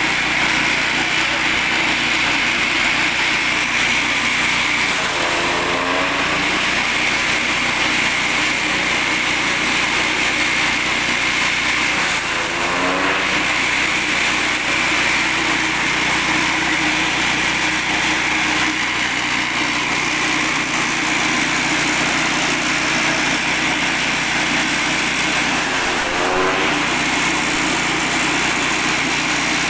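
Grass chopper driven by an 8 hp petrol engine, running steadily at speed. Its pitch briefly sweeps and recovers three times, at about 5, 12 and 26 seconds in.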